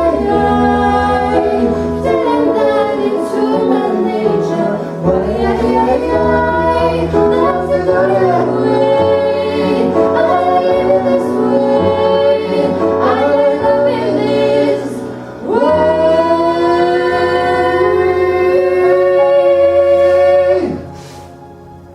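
Live singing with piano accompaniment, a woman's voice to the fore. About fifteen seconds in, the voices hold one long note for about five seconds, then break off.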